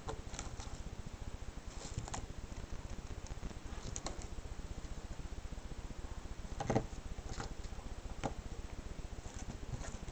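Fingers pressing small pieces of visco fuse onto masking tape on paper: scattered soft clicks and rustles, the loudest about two-thirds of the way through, over a steady low hum.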